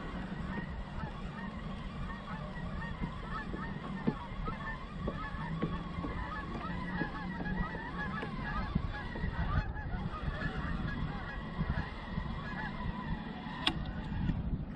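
A flock of geese honking, many calls overlapping, over a low steady hum. A single sharp click near the end.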